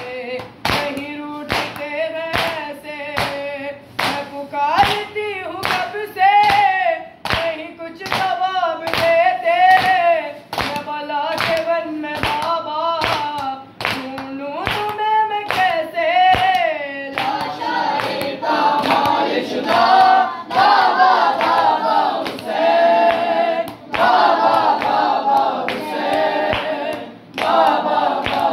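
A boy chanting a noha, a Shia mourning lament, over steady matam chest-beating strikes, about three every two seconds. About halfway through, a group of voices joins in and chants with him.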